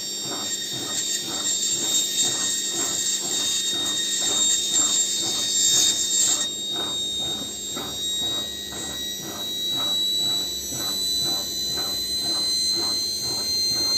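Bosch washing machine's brushed universal motor running on a spin test with a high whine that slowly rises in pitch and a regular pulsing about twice a second. An abrasive stone is held against the spinning armature commutator, grinding away its uneven wear, and the scraping hiss of it stops about six and a half seconds in.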